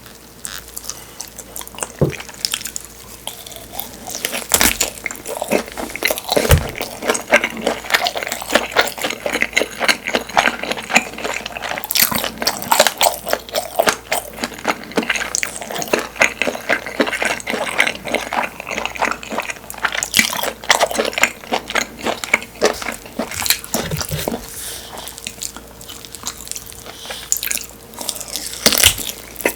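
Close-miked chewing of Korean blood sausage (sundae): a dense, continuous run of wet mouth clicks and bites, with a few louder knocks here and there.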